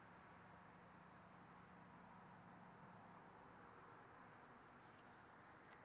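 Near silence: a cricket trilling steadily on one high pitch over a faint low hum, stopping just before the end.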